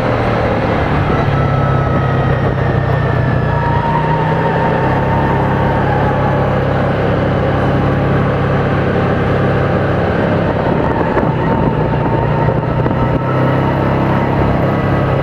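Small 500 cc petrol engine of a child-size sports car running steadily under way, its pitch shifting slightly as the speed changes.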